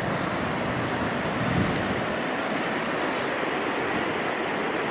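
Huge storm-driven ocean surf breaking and washing ashore, a steady rush of noise.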